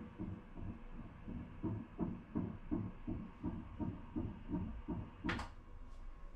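Fetal heartbeat played through an ultrasound scanner's Doppler: even, whooshing pulses, almost three beats a second, a fast rate typical of a fetus. A short hiss cuts across about five seconds in.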